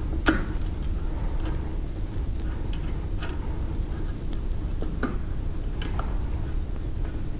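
A few sharp metallic clicks and clinks as a T-handle hex wrench turns bolts into the steel mount of a belt-grinder surface grinder attachment, the loudest just after the start. Under them runs a steady low rumble.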